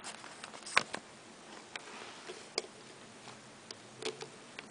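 A few scattered light clicks and taps from a digital multimeter and its test leads being handled on a tabletop.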